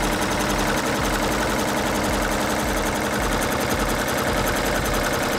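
15-needle commercial embroidery machine running, its needle stitching rapidly into a hooped garment with a fast, even mechanical clatter at a steady level.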